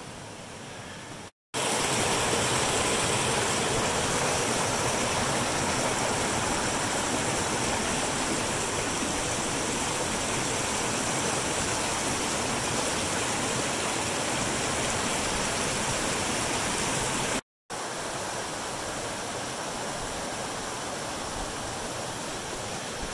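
Shallow rocky creek rushing steadily over stones and small icy cascades. The rush cuts out briefly twice and comes back slightly quieter after the second break.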